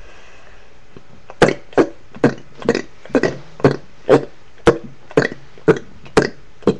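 A rapid series of short, deliberate hiccup-like burps, about two a second, starting about a second and a half in.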